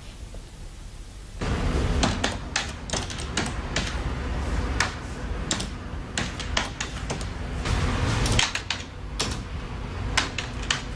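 Typing on a computer keyboard: irregular runs of clicking keystrokes, starting about a second and a half in.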